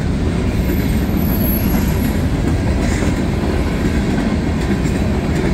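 Covered hopper and tank cars of a freight train rolling past at speed: a steady, loud, low rumble of steel wheels on rail.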